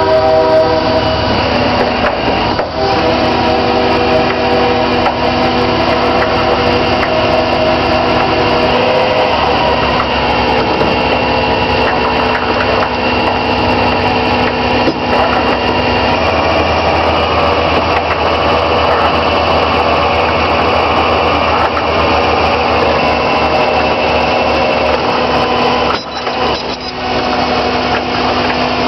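Recovery truck's winch running steadily as a wrecked car is dragged by its cable and chain: a constant mechanical whine whose pitch shifts a little about nine seconds in and again past halfway, with scraping and rubbing.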